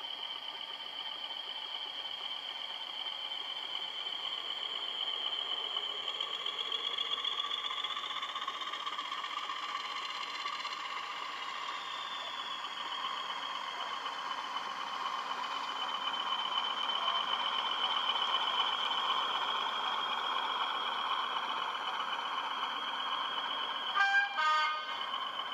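EM gauge model diesel shunter and goods train running along the track: a steady high motor whine over the rumble and clatter of the wheels on the rails. The whine rises and falls in pitch as the locomotive passes close by. Near the end comes a brief two-part horn toot.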